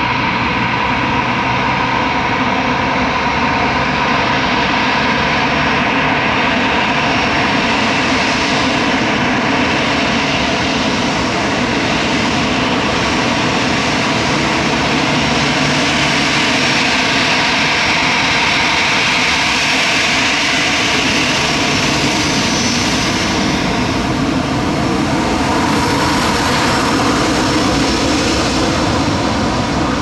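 The twin jet engines of an Airbus A319 running at low ground power as it taxis: a steady whine with several held tones over a rush of noise.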